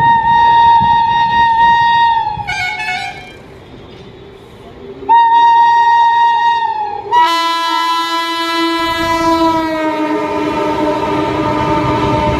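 A WAP7 electric locomotive sounds its horn in two blasts of about two seconds each. About seven seconds in, the locomotive's high whine rises over the sound, a shrill chord of many tones that slides slowly down in pitch as it runs past, with the rumble of the train building underneath.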